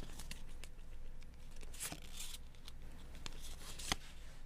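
Trading cards being handled and flipped through: soft paper swishes and small clicks, with a sharper tap near the end.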